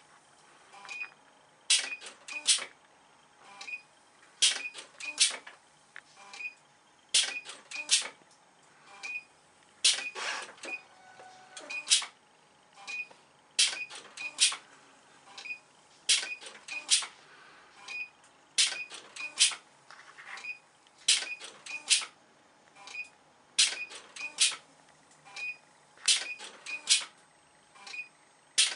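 CNC selective-soldering machine cycling joint to joint: clusters of two to four sharp mechanical clicks repeat about every two and a half seconds, with faint ticks between them.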